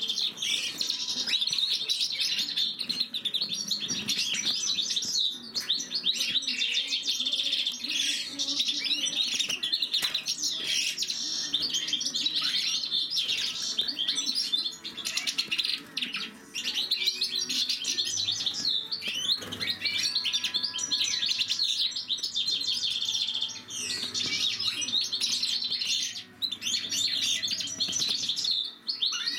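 European goldfinches of the major race singing a continuous, fast, twittering song, broken by a few brief pauses.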